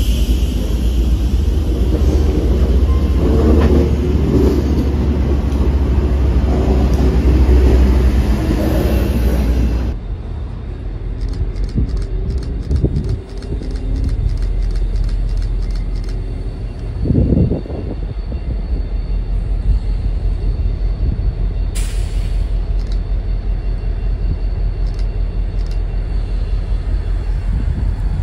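MBTA commuter rail train's bilevel passenger coaches rolling past at close range, a steady loud rumble and wheel noise that cuts off abruptly about ten seconds in. After that, a quieter low steady rumble from the waiting diesel locomotive and street traffic, with a short low thud partway through and a car passing near the end.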